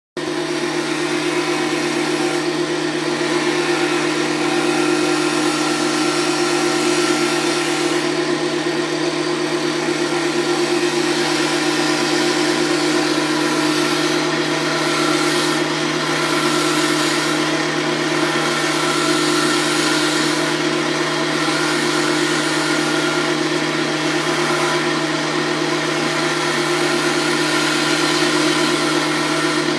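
Wood lathe running, its motor giving a steady hum of constant pitch with a hiss above it.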